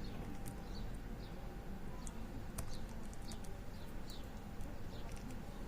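Faint scattered metallic clicks of a lock pick and tensioner working the pins of a disc lock, with a small bird chirping in short, repeated falling notes in the background.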